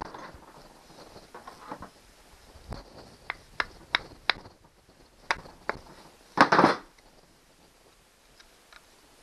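Sharp metal taps and clicks of hand tools working against an outboard powerhead as it is pried apart, about six taps, then a louder scraping clatter a little past halfway through.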